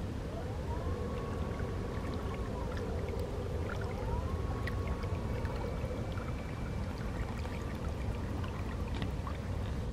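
Remote-control baitboat's brushless electric motors whining, twice rising in pitch, holding and falling again as they speed up and slow down, over a steady rush of water at the hull.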